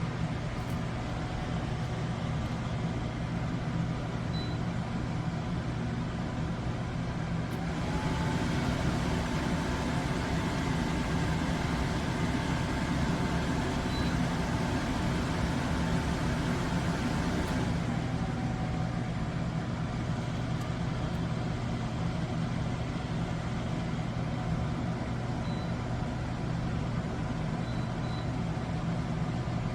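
Steady low machine hum. About eight seconds in, a louder rushing noise comes in with a whine that rises in pitch, holds steady for about ten seconds, then glides back down and fades.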